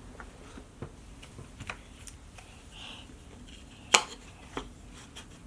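Wooden jigsaw puzzle pieces tapping and clicking against the wooden board as they are tried in place: a few light knocks and one sharp, louder click about four seconds in.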